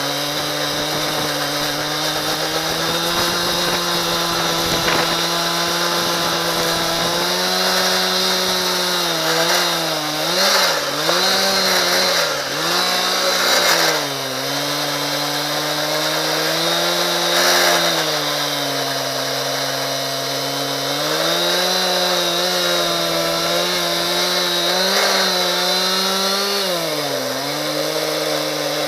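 Husqvarna 372 XPG two-stroke chainsaw running at high revs in a chainsaw mill, ripping lengthwise through a dry, hard ash log. Its engine speed dips and recovers several times about ten to fourteen seconds in, and again near the end.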